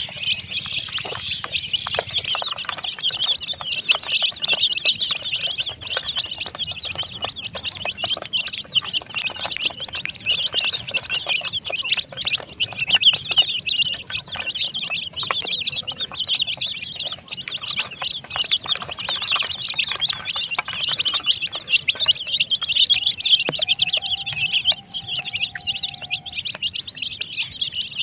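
Many baby chicks peeping continuously, a dense chorus of rapid high chirps with no pause.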